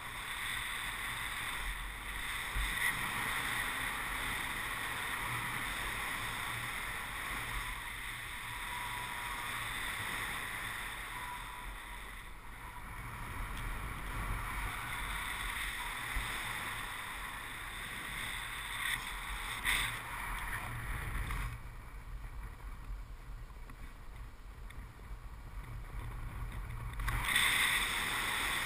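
Airflow rushing over the microphone of a camera on a paraglider in flight: a steady wind roar and hiss. The higher hiss thins out for several seconds near the end, then comes back.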